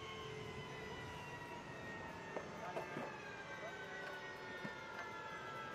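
Jet turbine whine on a flightline, several tones sliding slowly and steadily down in pitch as an engine winds down. A few light metal clanks come in the middle as an aluminium boarding ladder is hooked onto the side of the jet.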